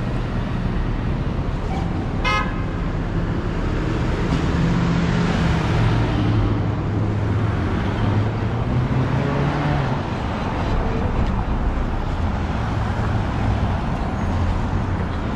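Steady city street traffic: engines and tyres, with the low drone of a nearby vehicle engine swelling in the middle. A short, high car horn toot sounds about two seconds in.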